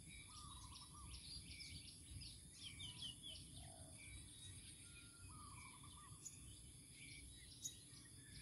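Faint outdoor ambience of several small birds chirping and calling, one repeating a short call of quick notes twice, over a steady high-pitched hiss and a low rumble.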